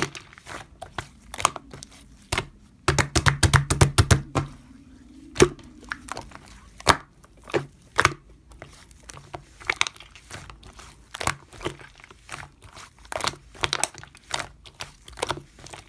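Slime being squished and worked by hand, giving irregular sharp clicks and pops, with a rapid flurry of them about three seconds in.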